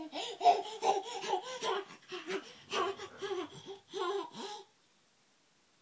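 A toddler's high-pitched babbling and laughter in short bursts, breaking off into silence a little over halfway through.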